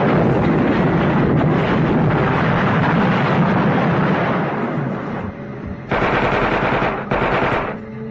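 Rapid automatic-rifle gunfire from a film shootout, a dense stream of shots that thins out about five seconds in. Two short, loud bursts of fire follow near the end.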